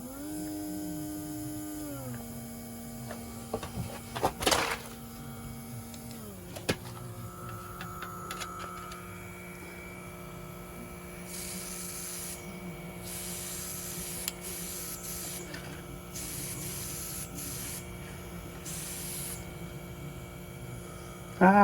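Small nail-art airbrush compressor running with a steady hum that drops in pitch twice in the first seven seconds, with a few knocks. Later, several bursts of hissing air as the airbrush sprays paint.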